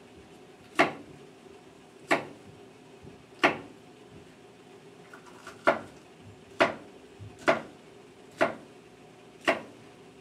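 Chef's knife striking a cutting board as it slices bell pepper into strips: eight sharp knocks, about one a second, a little uneven.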